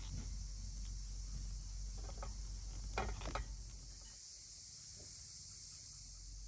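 Steady high-pitched chirring of crickets or other insects. In the first half come a few short rustles and soft knocks as twine is pulled and tied around a cloth-covered jar.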